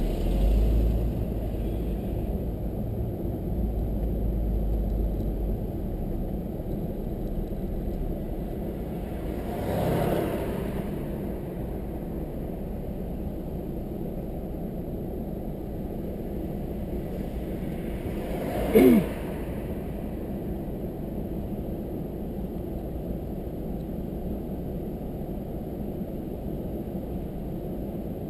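Road noise inside a moving car: a steady low rumble of engine and tyres, with a louder swell about ten seconds in and a brief sharp sound with a falling pitch a little past the middle.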